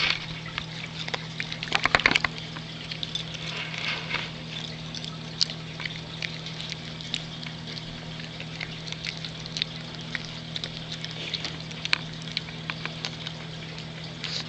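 A dog with stubby teeth chewing and crunching a treat: irregular wet clicks and crackles, thickest about two seconds in and then sparser, over a steady low hum.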